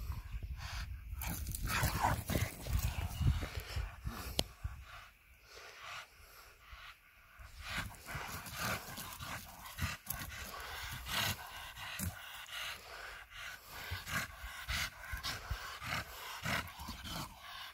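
Pocket bully dogs panting and breathing hard as they jump and snap at a stick.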